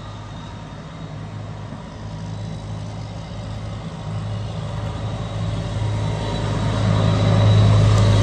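A steady low mechanical hum, like a motor running, that grows gradually louder.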